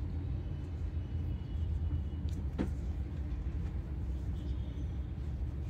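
Steady low background rumble, with one brief faint sound with a short falling pitch about two and a half seconds in.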